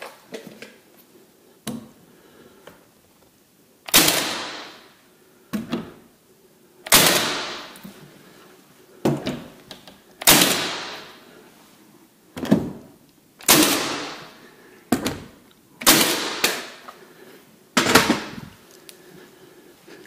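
Milwaukee cordless nail gun driving nails into door casing: six loud shots a few seconds apart, each trailing off over about a second, with quieter knocks in between as the gun is set against the trim.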